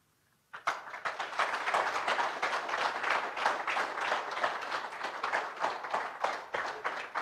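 Audience applauding: many hands clapping, starting suddenly about half a second in and keeping up at an even level.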